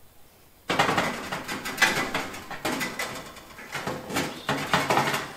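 Metal wire smoker racks rattling and clinking as they are handled and slid into the Big Chief electric smoker: a quick run of clicks, scrapes and knocks that starts suddenly about a second in.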